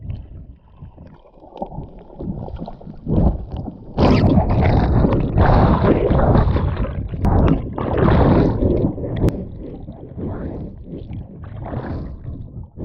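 Muffled underwater water noise picked up by a submerged action camera as a swimmer dives: rushing and gurgling water with a low rumble, loudest from about four seconds in until about nine seconds, then easing.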